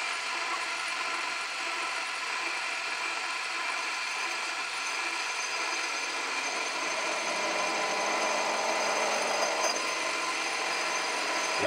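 Myford metal lathe running steadily at about 1500 rpm with a whine of several steady tones, while a grooving tool is hand-fed into a turning piston to cut a piston ring groove. The scraping of the cut grows louder about six and a half seconds in and eases off near ten seconds.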